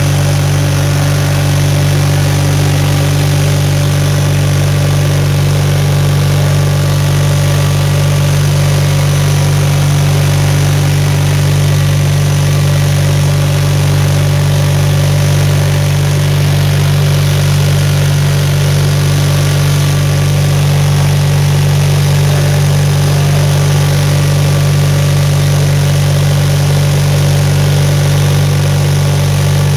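The 520-SC Snow Chucker's engine, exhausting through a vertical stack, running at a steady speed while the machine is driven, with an even low hum that does not rise or fall.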